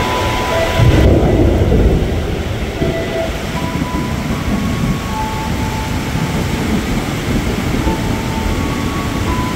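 A JR 205 electric commuter train pulling in and running past close by: a heavy low rumble of wheels and running gear, loudest about a second in and then steady. A few short, steady tones come and go over it.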